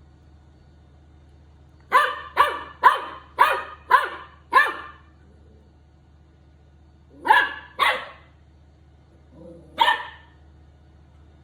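Golden retriever puppy barking in sharp, high barks: six in quick succession, about two a second, then a pause, two more, and one last bark near the end.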